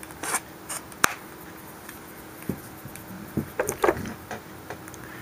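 Remington Model 11 shotgun's wooden buttstock being fitted onto the steel receiver and the gun handled, giving scattered light clicks and knocks of wood on metal. A sharp click comes about a second in, and a cluster of knocks comes near the end.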